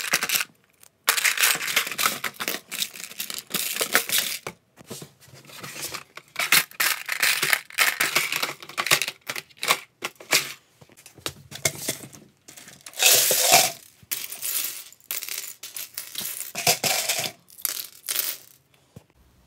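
Plastic LEGO pieces rattling and clattering as a bin of bricks is rummaged through by hand. The clatter comes in bursts with short pauses between them, with one loud burst about two thirds of the way through.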